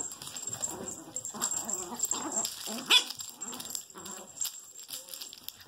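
Two small dogs play-growling in short repeated bursts as they tussle over a plush toy, with one sharp, louder yip about three seconds in.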